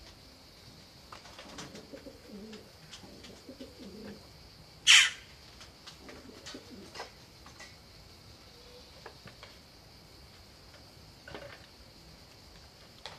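Doves cooing softly in the background, several low calls in the first half and again briefly after it. About five seconds in comes one sudden loud, short, noisy burst.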